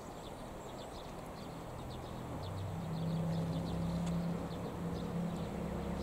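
Outdoor riverside ambience: short high bird chirps repeat throughout over a low steady hum that grows stronger about halfway through.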